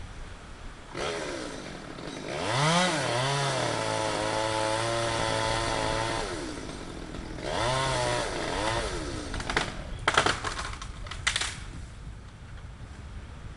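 Chainsaw revving up and running at full throttle for a few seconds, dropping off, then revving briefly again, followed by several sharp cracks near the end as the cut limb breaks and comes down.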